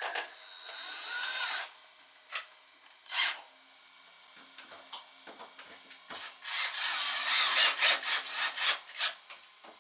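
Cordless drill-driver driving screws into hose clips and tank fittings: short runs of the motor, with a rising whine about a second in and a quick series of sharp clicks and scrapes from about six and a half seconds to nine, the loudest part.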